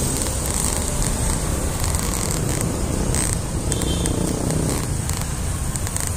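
Steady low rumble of wind and road noise from riding a bicycle along a city street.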